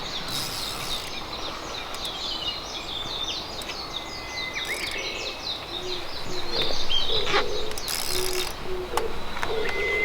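Wild birds chirping and singing, with a low hooting call repeated in short notes through the second half.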